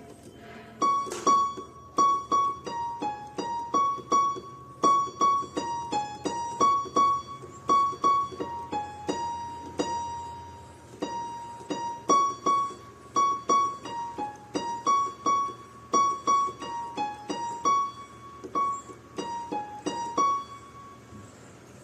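Solo piano playing a simple, slow melody of single struck notes. It keeps repeating one high note and stepping down to lower ones, with a longer held note about halfway through, in the style of an easy piano cover of a Hindi film song.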